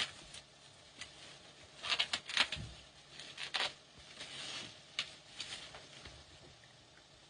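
Irregular rustling, crinkling and light knocks of a plastic-wrapped coffin being handled in the back of a funeral car, loudest about two seconds in.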